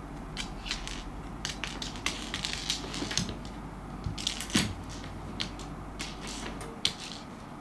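A cat playing with a hard dried persimmon seed on a wooden floor: irregular sharp clicks, taps and crunches in clusters, the loudest a little past halfway and another single sharp click near the end.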